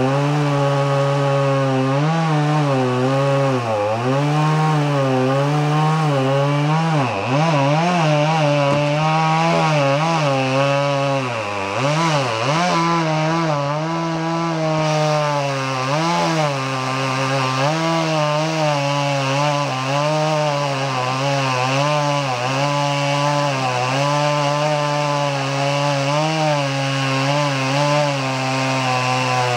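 Two-stroke chainsaw running at cutting speed through oak limbs. Its pitch wavers as the chain loads in the wood and drops sharply a couple of times in the first half.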